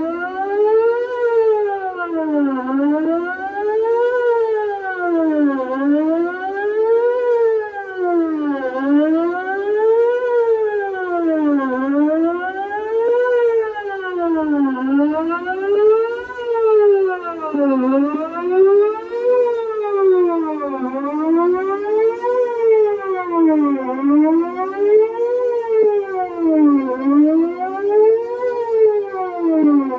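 Whelen electronic outdoor warning siren sounding a wail, its pitch rising and falling evenly about once every three seconds.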